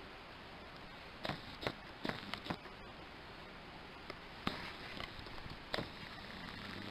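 Handling noise as a fish is skewered by hand on a green stick: about seven short, sharp clicks and snaps, bunched in the first half and two more later, over a steady background hiss.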